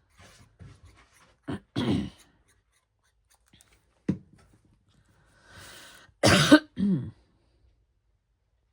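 A woman clearing her throat and coughing, a few short bursts with the loudest two close together about six and a half seconds in; her throat is hoarse, 'a little froggy'.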